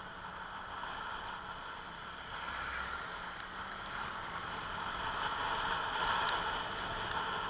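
Motor scooter running, with steady road and wind noise that grows a little louder about five seconds in.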